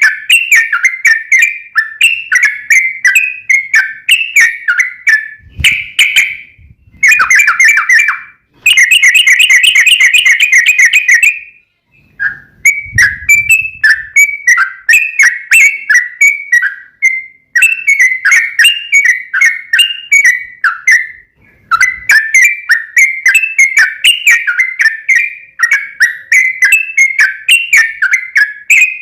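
Yellow-vented bulbul (trucukan) singing a long, loud run of quick bubbly chirps, with a faster, denser burst of notes about a third of the way in and two brief pauses.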